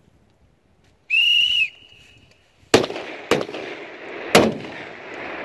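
A short, high whistle blast, then three rifle shots from the prone firing line, the second about half a second after the first and the third a second later, each trailing off in a rolling echo.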